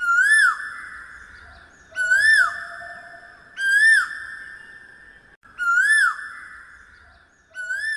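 A whistle-like call repeated five times, about every two seconds, each one rising and then dropping sharply, with a long echoing tail that fades before the next. It is the sound effect over the channel's logo intro.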